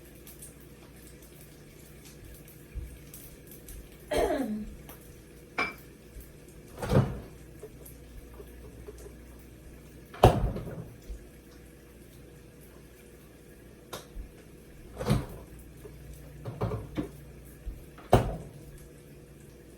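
Kitchenware handled in a kitchen: about seven separate knocks and clatters of dishes and utensils, the loudest about ten seconds in, one near the start sliding down in pitch, over a faint steady hum.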